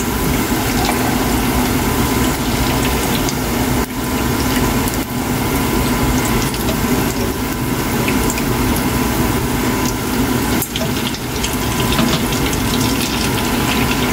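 Hot oil sizzling steadily as churro-dough-wrapped hot dogs on skewers deep-fry in a pan, with scattered small crackles.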